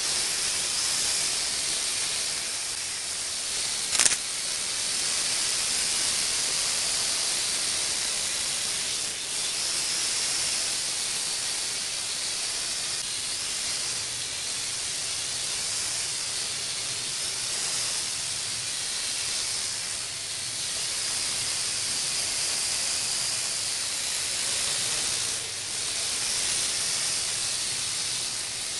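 WLtoys V929 mini quadcopter's small electric motors and propellers whirring as a steady high hiss, dipping and swelling briefly a few times as it manoeuvres. A single sharp click about four seconds in.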